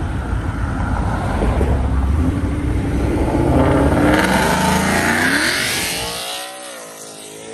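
Ford Mustang accelerating hard past, its engine revving up in pitch and getting louder as it goes by, then fading as it pulls away.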